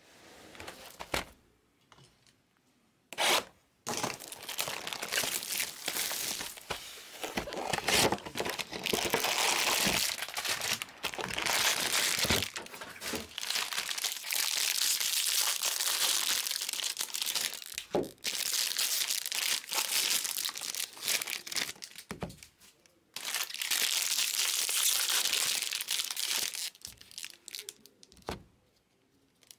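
Foil wrappers of trading-card packs being torn open and crinkled by hand, in long rustling stretches with short pauses, after a single sharp crackle about three seconds in.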